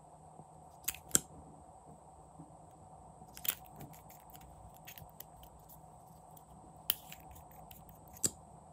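Plastic caps of lip-tint tubes clicking off and on: a close pair of sharp clicks about a second in, then single clicks about three and a half, seven and eight seconds in, with fainter small taps in between.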